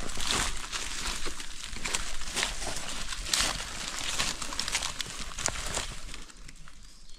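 Dry leaves and twigs rustling and crackling with many sharp snaps, as from moving and picking through forest litter around a log. The rustling eases off near the end.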